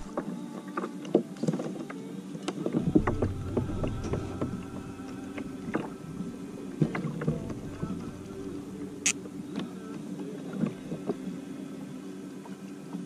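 Irregular light clicks and knocks of fishing gear and the plastic hull of a fishing kayak as the angler handles his rod. One sharper click comes about nine seconds in.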